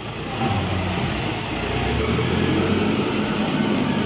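Street traffic noise, with a vehicle engine running steadily under a general din.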